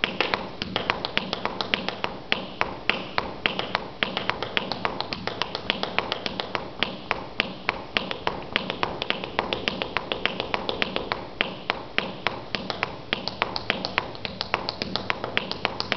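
Seated clogging footwork: hard-soled shoes tapping heel and toe on a wooden floor in a quick, even rhythm of about five taps a second. Higher-pitched toe taps are mixed with lower heel taps into a playful pattern.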